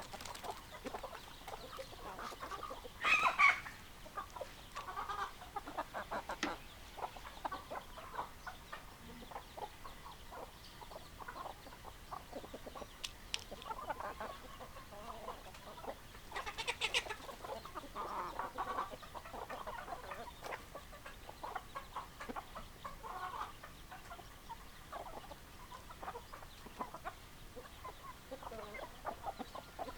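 Hens clucking, many short calls one after another, with a louder call about three seconds in and another around seventeen seconds.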